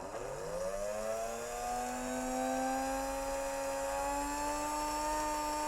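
Märklin model locomotive's electric motor running in reverse: a whirring hum that climbs quickly in pitch as it spins up, then holds steady while creeping slowly higher. The rising tone is the sign of the motor freeing up in its bearings and collector as the old hardened grease dissolves in the fresh oil.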